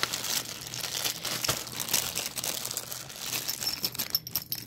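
Bubble wrap and plastic packaging crinkling and rustling as a hand rummages through a box, with a continuous run of small irregular crackles.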